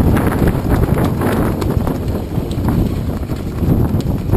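Wind buffeting an action camera's microphone: a loud, uneven low rumble in a breeze of about 15 knots.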